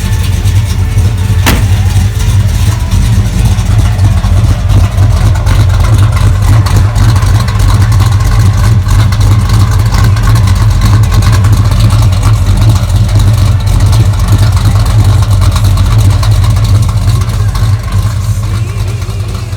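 Supercharged V8 engine of a 1969 Dodge Charger running with a steady, deep rumble, easing off slightly near the end.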